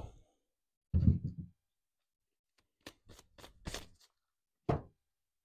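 Handling knocks of a cardboard rocket tube and its wooden guide stick on a workbench. A dull thud about a second in, a quick run of about five sharp clicks around three seconds in, and one more knock near the end.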